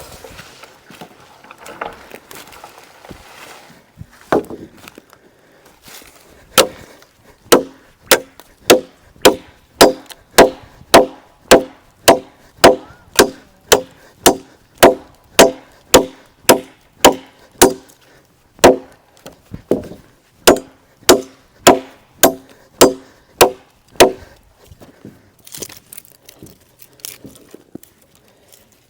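Machete chopping wood: a long steady run of sharp strikes, about two a second, starting several seconds in and stopping a few seconds before the end, with softer knocks and rustling around them.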